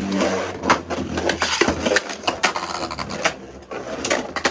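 Two Beyblade Burst spinning tops, Hyperion Burn and Helios Volcano, spinning and clashing in a plastic stadium: a whirr at first, then repeated sharp clacks as they collide and scrape.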